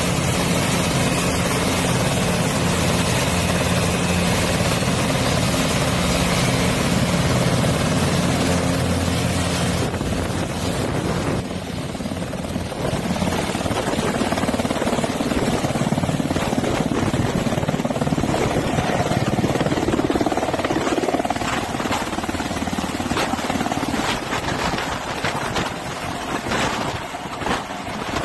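Kamov Ka-32T twin-turbine firefighting helicopter running on the ground, a steady engine and rotor hum with a low drone. About ten seconds in it turns to a noisier rushing sound, and there are a few clicks and knocks near the end.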